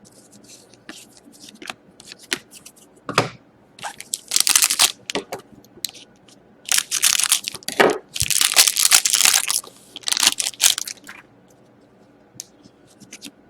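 Trading-card pack wrapper being torn open and crinkled in several bursts of tearing and rustling, with light clicks and a soft knock from cards being handled.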